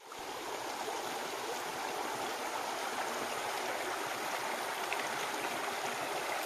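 Shallow rocky stream running steadily over stones.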